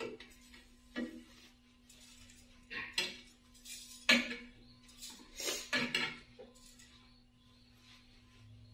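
Metal kitchen tongs clinking and scraping against a non-stick frying pan as slices of bread are turned and lifted, with about eight sharp clinks over the first six seconds, then quieter. A faint steady hum runs underneath.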